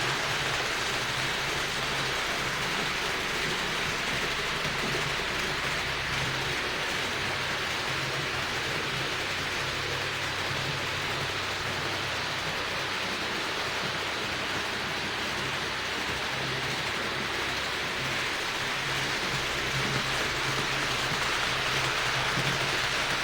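Roco H0-scale BR 80 model steam tank locomotive running on the layout track: a steady rushing hiss with a low motor hum that comes and goes.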